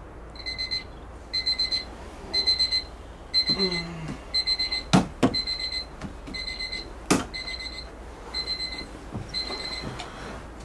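Electronic alarm beeping: about ten bursts of quick rapid beeps, roughly one burst a second. Two sharp knocks come a little after halfway through.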